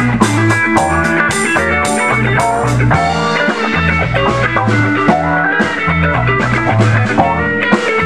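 A band playing a funk groove: electric guitar and bass guitar over steady, evenly spaced drum hits.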